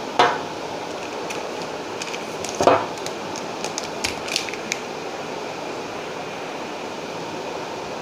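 Plastic carry bag rustling as glass bottles of cooking oil are lifted out and set down on a glass tabletop. Two louder knocks, one at the start and one a little under three seconds in, then a few light clinks, over a steady background hiss.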